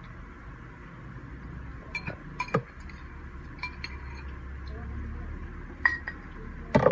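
Spoons clinking and scraping against a small glass bowl and a tin can, a few separate clinks with the loudest group near the end.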